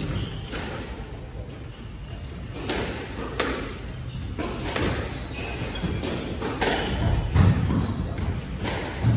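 Squash rally: the ball smacking off the rackets and walls in quick back-and-forth hits about every second, with short high squeaks of court shoes on the wooden floor.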